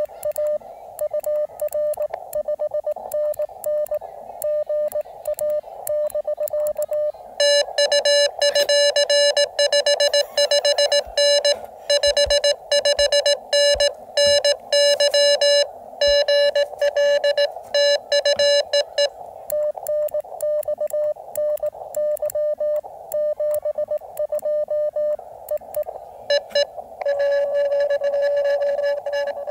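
Morse code from a portable ham radio transceiver, a single tone of about 600 Hz keyed in dots and dashes. At first it is a softer, wavering received CW signal over band noise. From about seven seconds in it becomes the louder, buzzier sidetone of the operator's own sending on his key. A softer received stretch follows, then the sidetone returns near the end.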